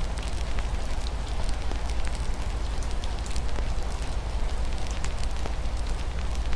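Wood fire crackling, with many small sharp pops scattered through a steady hiss of rain on a window and a constant low rumble underneath.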